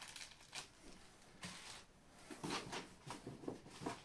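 Plastic packaging crinkling and cardboard rustling in irregular short bursts as accessories are handled and taken out of a monitor box.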